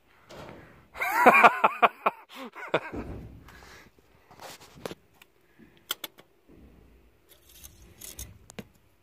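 Light metal clicks and scrapes of a dipstick being handled in its tube on a John Deere 4640 tractor engine during an oil change, with a brief voice about a second in.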